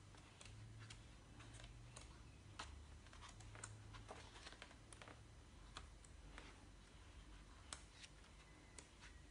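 Faint, irregular paper ticks and rustles of a large photo book's pages being leafed through by hand, over a low steady hum.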